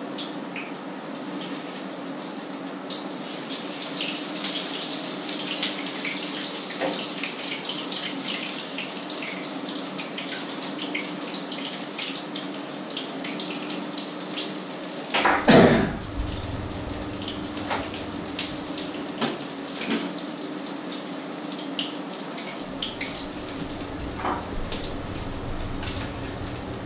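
Patties frying in pans on an electric stove, a crackling sizzle with many small pops, over a steady low hum. A loud clunk of cookware about fifteen seconds in, then a few lighter clinks.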